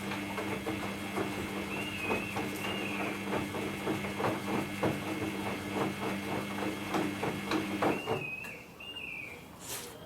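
Samsung front-load washing machine drum turning during a cotton wash: a steady motor hum with a quick stream of small knocks from the wet load tumbling, stopping about eight seconds in as the drum pauses.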